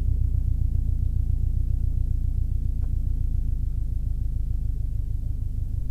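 Subaru WRX STi's turbocharged flat-four engine idling steadily, heard from inside the cabin as a low, even rumble.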